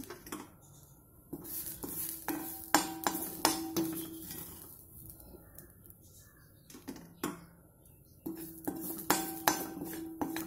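Steel slotted spoon scraping and clinking against a cast-iron kadai and a steel plate while roasted grated coconut is scooped out. The metal sounds come in two bursts with a quieter stretch between, and the pan rings under the strokes.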